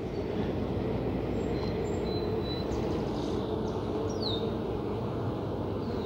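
Honeybees from an open hive, a steady buzzing drone that swells slightly in the first second, with a few faint high bird chirps.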